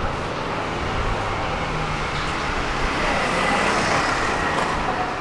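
Rome city tram running along its line: steady running noise of the car on the rails, growing somewhat louder about three seconds in, with a faint high whine over it.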